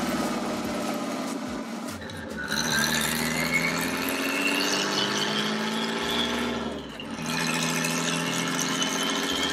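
Nissan RB20DET straight-six with a big turbo pulling through the revs, heard from inside the cabin: a loud turbo whistle rises in pitch over the engine note from about two and a half seconds in. It breaks off briefly about seven seconds in, then whistles again steadily.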